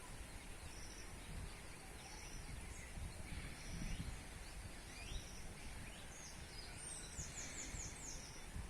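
Small birds calling: a short high note repeated about once a second, and about seven seconds in a quick run of five high, falling notes. An uneven low wind rumble runs underneath.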